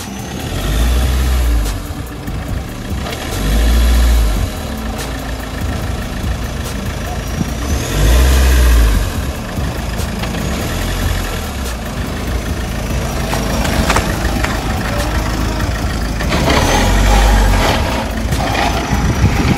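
Mahindra Scorpio SUV engine running under load as it crawls over rough ground, revved up in about five short bursts of a second or so.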